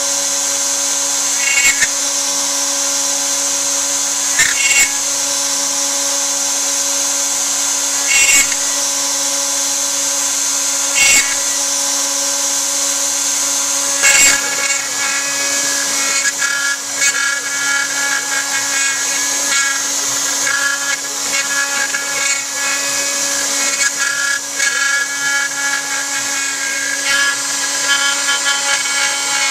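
Homemade CNC router's spindle running with a steady whine while an eighth-inch ball-nose bit carves pine. Louder bursts come about every three seconds at first, then the cutting turns continuous and uneven from about halfway.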